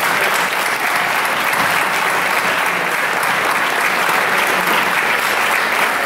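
Audience applause, a dense steady clapping from a large crowd.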